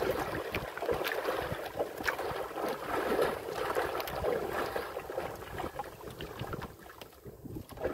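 Sea water sloshing and splashing against the side of a small wooden outrigger boat, an uneven rushing wash with a few faint knocks.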